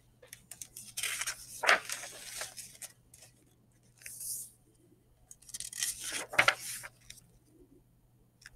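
Pages of a hardcover picture book being turned by hand. Stiff paper rustles and slides in two main bursts, about a second in and again around six seconds, the second with a sharp snap as the page lands, and there is a brief brushing sound in between.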